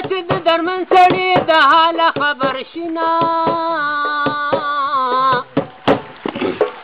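A man singing unaccompanied by any instrument, a bending melody that settles into one long wavering held note, with sharp rhythmic taps or claps beating time; the taps grow denser near the end.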